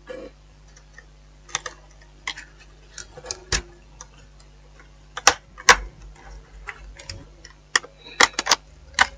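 Irregular light clicks and taps of plastic as a Dell Latitude D620 laptop's keyboard ribbon connector is unplugged and the keyboard is worked loose and lifted out.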